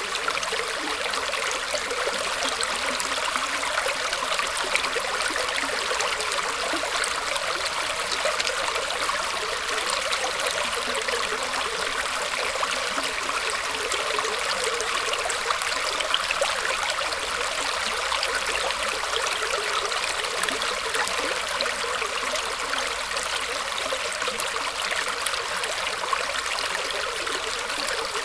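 Shallow stream water trickling and splashing steadily, flowing over and around roots.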